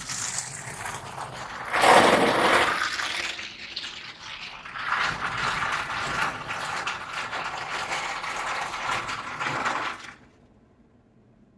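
Automatic car wash heard from inside the car: rotating foam brushes scrub across the windshield and body while water sprays down, a loud rushing like thunder and heavy rain. It surges about two seconds in, runs again from about five seconds, and stops abruptly about ten seconds in.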